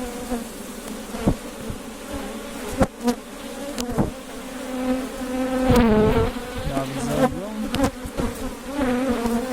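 Honey bees buzzing in a dense, wavering hum around an opened hive as its frames are inspected, with one bee passing close and buzzing louder about six seconds in. A few sharp knocks from frames being handled sound in the first half.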